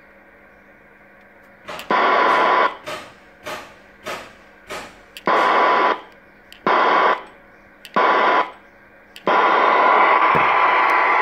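CB radio speaker giving loud bursts of hissing static with a steady whistle, switching on and off again and again: several short bursts, then a long one of about three seconds near the end. The CB set is being keyed on and off during an SWR-meter check, and a second radio left switched on picks it up.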